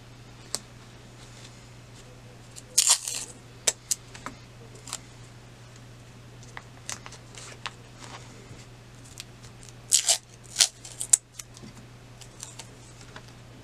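Hands handling fabric and stabilizer in a plastic embroidery hoop: scattered short rustles and clicks, loudest about three seconds in and again around ten to eleven seconds, over a steady low hum.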